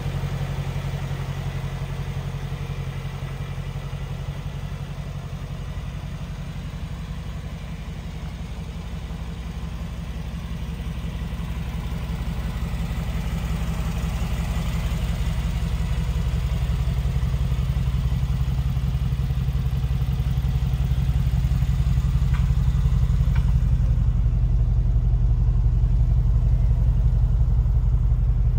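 Mercedes G-Class engine idling steadily with a low hum, growing gradually louder over the second half.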